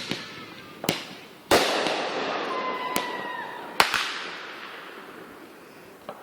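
Consumer fireworks going off: five sharp bangs, the loudest about a second and a half in, followed by a hissing tail lasting a couple of seconds. A short whistle tone sounds in the middle.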